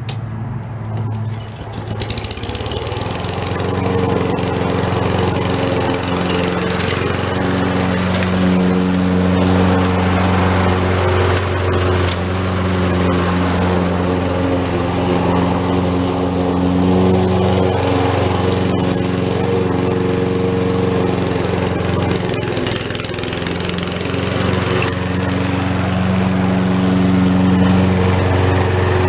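Lawn mower engine running steadily while cutting grass. It grows louder over the first few seconds, then holds, with small shifts in pitch as the load changes.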